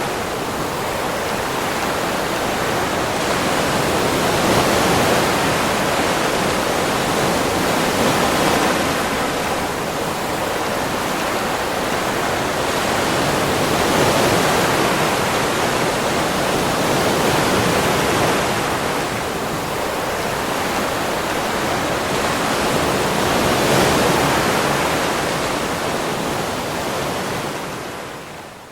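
Ocean surf washing onto a beach, a steady rush that swells and eases about every five seconds. It fades down near the end.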